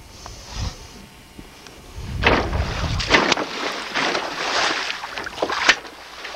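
A bluefin tuna beating its tail at the surface beside the boat, splashing water hard for a few seconds from about two seconds in, with several sharp slaps.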